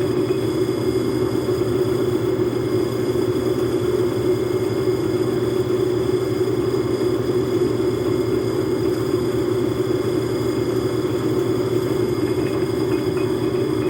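Logan metal lathe running at a steady speed, an even mechanical drone with no changes or knocks.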